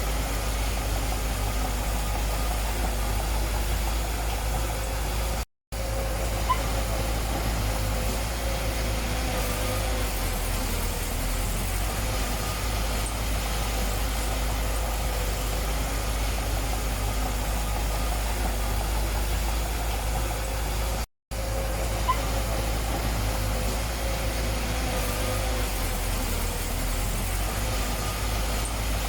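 Diesel engine of a bulldozer or dump truck running steadily at low revs, with two very short gaps where the sound cuts out completely.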